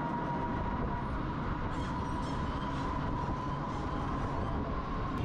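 A moving auto-rickshaw: steady motor and road rumble, with a thin, steady high whine over it.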